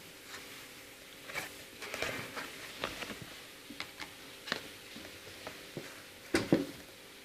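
Books and their packaging being handled: irregular rustles, taps and knocks, the loudest a couple of thumps about six seconds in.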